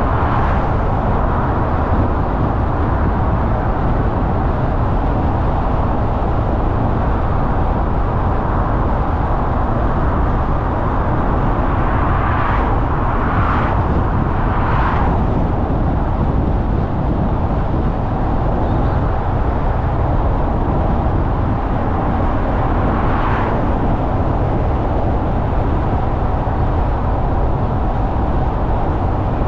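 A car driving along a road, with steady low road and engine noise. There is a quick run of three brief whooshes a little before halfway and one more about three-quarters of the way through.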